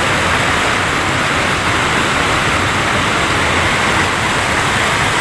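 Water pouring over a concrete river weir, a steady, loud rush.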